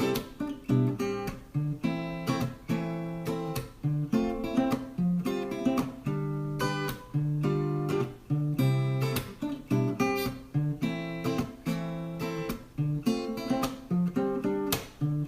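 Acoustic guitar strumming chords in an instrumental break of a worship song.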